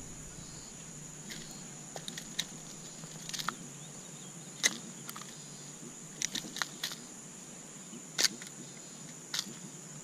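Small sharp metal clicks, about a dozen at irregular intervals, from fishing pliers working the treble hooks of a crankbait out of a piranha's mouth. A faint steady high whine runs underneath.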